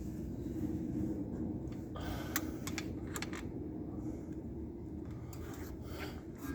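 Light metallic clicks and taps from pliers turning a screw-type brake caliper piston inward, over a steady low hum. The clicks cluster about two to three seconds in, with a few more near the end.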